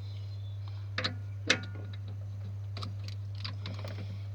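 Light clicks and knocks of things being handled and moved at a lathe, the sharpest about a second and a half in, over a steady low hum.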